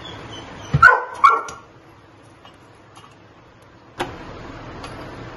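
Two short, loud pitched calls about half a second apart, over the steady hiss of a lit gas stove burner that is heating a piece of coal.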